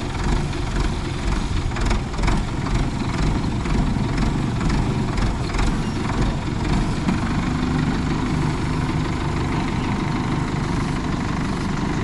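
Farm tractor engine running steadily at low speed as the tractor drives down a dirt slope, with a few brief rattles about two seconds in.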